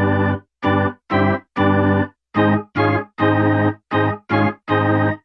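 Music: keyboard chords played in short, clipped stabs, about two a second, with brief silences between them.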